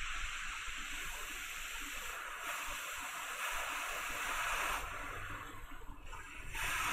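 Hot air rework station nozzle blowing a faint, steady hiss of air onto a solder-paste-filled reballing stencil to reflow the paste, swelling slightly for a couple of seconds partway through.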